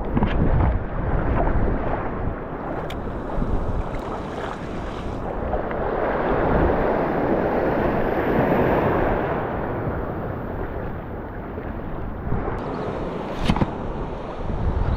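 Small surf breaking and washing up a sandy beach, swelling for a few seconds in the middle and then easing, with wind buffeting the microphone. A sharp click comes near the end.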